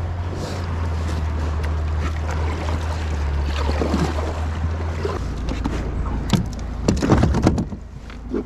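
Water sloshing around a kayak's hull on open water, with a low wind rumble on the microphone that drops away about five seconds in. A few short, sharp knocks about two-thirds of the way through are the loudest sounds.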